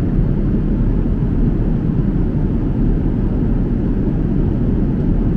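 Steady low rumble of jet airliner cabin noise in flight.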